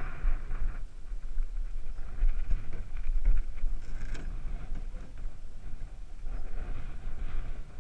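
Wind buffeting the camera's microphone as a fluctuating low rumble, with light rustling and one sharp knock about four seconds in.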